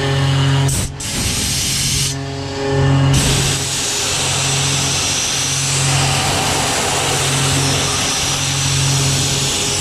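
Tormach 770M CNC mill's spindle running a three-flute end mill through 6061 aluminum: a steady hum under a broad hiss of cutting. The hiss dips about a second in and thins out between about two and three seconds in, then runs steadily again.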